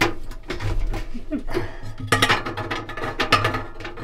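Metal clinks and knocks from hand-worked bearing parts at the centre hub of a stainless steel dryer drum's back wall, several sharp strikes at uneven intervals.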